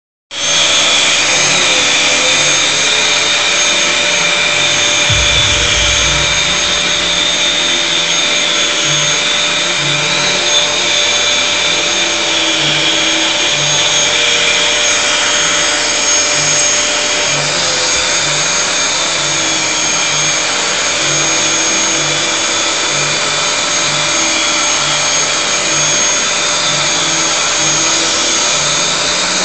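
Dyson DC21 Motorhead cylinder vacuum cleaner running steadily, its floor head on carpet: a constant loud motor whine with a high steady tone.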